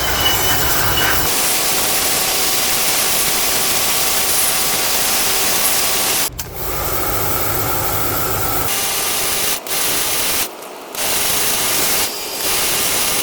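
Steady, loud rushing noise of air-conditioner filters being cleaned, in several short stretches cut together with abrupt breaks.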